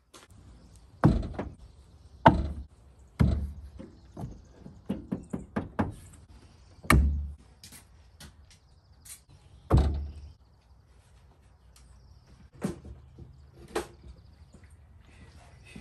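Irregular knocks and thuds of chainsaws being taken down and handled on wooden shop racks, a dozen or so strokes with a few heavy ones and a quick cluster of lighter knocks about five seconds in.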